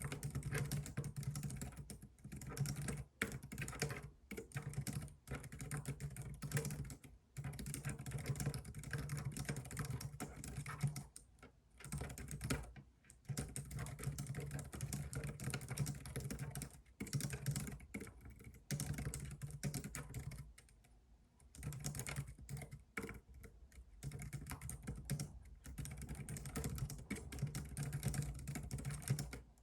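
Computer keyboard being typed on in fast, continuous runs of keystroke clicks, broken by a couple of short pauses, one near the middle and one about two-thirds of the way through.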